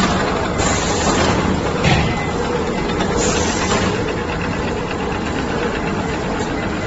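RG-R800 bag-on-roll making machine with folding unit running steadily, a continuous mechanical din, with a few short hissing bursts and a sharp knock about two seconds in.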